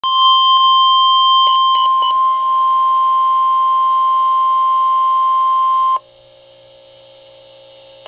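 NOAA Weather Radio warning alarm tone, a steady 1050 Hz tone, coming from a Midland weather radio's speaker, with three short beeps about a second and a half in. It is the alert that comes before a tornado warning broadcast. The tone cuts off suddenly about six seconds in, leaving a faint hum.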